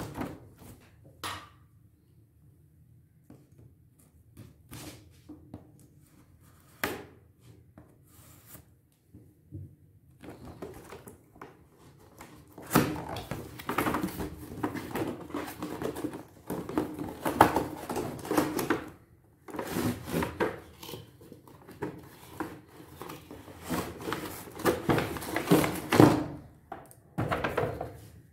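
Cardboard packaging being handled: scattered taps and knocks, then, from about ten seconds in, a long stretch of scraping and rustling as the cardboard sleeve is slid off the toy car's display tray.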